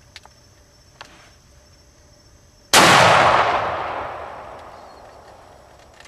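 A single gunshot about two and a half seconds in, sudden and loud, with a long echo that dies away over about three seconds. It is fired at a spotlighted hog and drops it on the spot. Insects buzz steadily and faintly before the shot.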